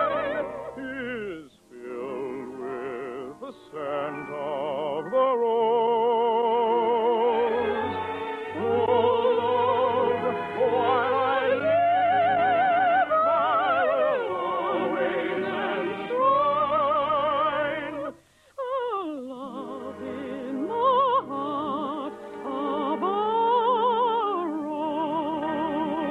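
Operetta love song sung in full classical voice with wide vibrato over an orchestra, in an old radio recording with a narrow, muffled top end. The singing breaks off briefly twice, about a second and a half in and again at about eighteen seconds.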